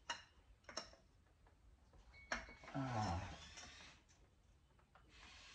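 A few sharp metallic clicks and knocks of a wrench on a Subaru boxer engine as its crankshaft is tried and will not turn. A short falling vocal grunt about three seconds in, and a brief hiss near the end.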